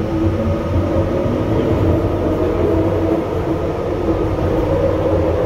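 Ride noise from inside a UTDC ICTS Mark I rapid-transit car travelling at speed: a steady rumble of wheels on rail, with a few steady humming tones above it.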